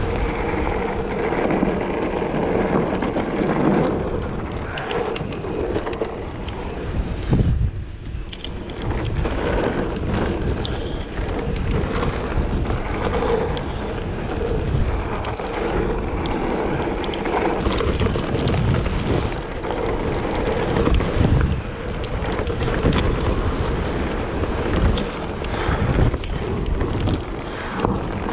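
Wind buffeting the microphone over the rumble and rattle of a Giant Trance E+ electric mountain bike's tyres on a rough gravel and dirt track, with many small knocks as the bike rides over bumps.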